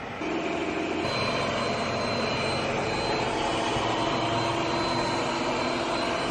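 Yeedi Vac 2 Pro robot vacuum running on a hardwood floor: a steady whirring hiss from its suction fan and brushes, with faint steady tones, coming up to full speed about a second in just after being started.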